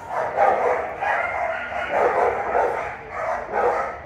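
Shelter dogs barking over and over, one bark closely following another.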